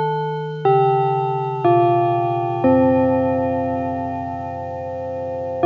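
Police station chime playing a slow bell-like melody: four notes stepping downward about one a second, the last held for about three seconds, then the next phrase starting near the end.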